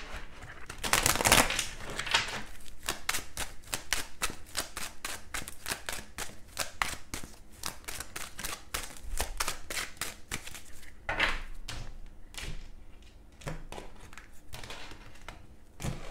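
A deck of tarot cards being shuffled by hand: a dense run of quick, light clicks and slaps, thinning out over the last few seconds.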